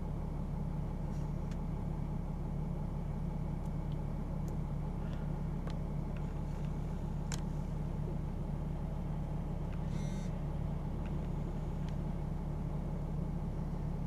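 Mercedes-Benz E320 diesel engine idling steadily, a low, even hum heard from inside the cabin.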